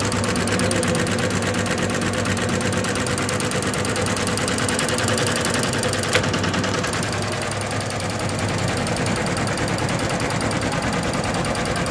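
OSAKA multi-head computerized embroidery machine stitching: the needle bars run in a steady, rapid mechanical rhythm, with one sharper click about six seconds in.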